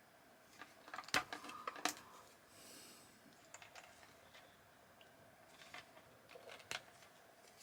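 Faint clicks and small snaps of wire strippers taking the insulation off a thin 12 V PC fan cable, the sharpest about a second in, just before two seconds and near the end, with lighter handling ticks between.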